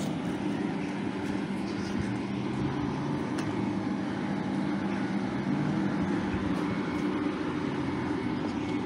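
A train running: a steady rumble with a low, even hum.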